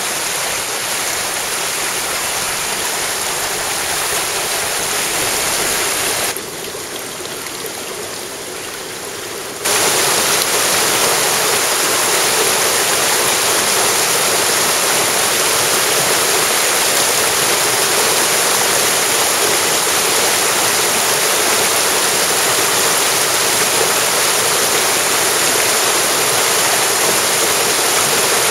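Mountain stream rushing, a steady water noise. It drops quieter about six seconds in and comes back louder some three seconds later.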